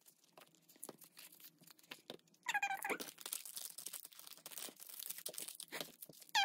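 Cellophane packaging and card stock rustling and crinkling as photo cards are handled and set down, with light taps; the crinkling thickens about two and a half seconds in, where a short squeaky sound also stands out.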